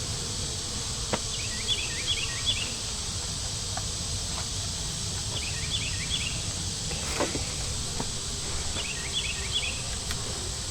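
Honey bees buzzing steadily around an opened, agitated hive. A bird repeats a short phrase of falling chirps about every four seconds, and there are a few light knocks, near the start and again about halfway through.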